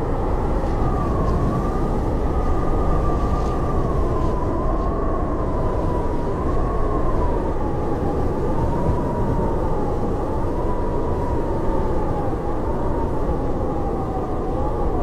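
Howling blizzard wind: a steady low rushing noise with a whistling howl on top that slowly wavers up and down in pitch.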